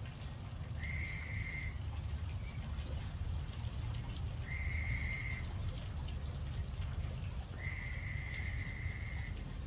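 An animal's high, even call, about a second long, repeated three times at intervals of about three seconds, the third one longer, over a steady low rumble.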